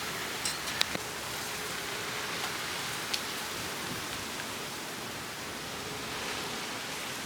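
Gusty wind blowing, a steady rushing noise, with a few short sharp clicks about half a second in, just before a second in, and about three seconds in.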